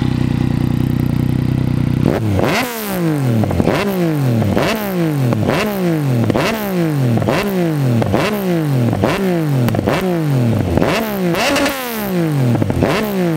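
Yamaha MT motorcycle engine with an Akrapovič carbon silencer, standing still. It idles, then about two seconds in it is revved in about a dozen quick blips, roughly one a second, the revs falling back after each. It settles to idle near the end.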